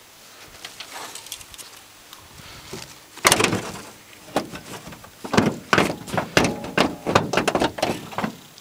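Holden VP Commodore bonnet being handled: a loud metal thud about three seconds in, then a run of short sharp knocks and clanks.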